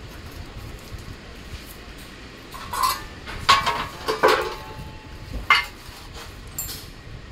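Metal parts of a sewing-machine stand being handled and set down on a concrete floor: a few sharp clanks with a short metallic ring, clustered between about three and five and a half seconds in, the loudest near three and a half seconds, over a steady low background noise.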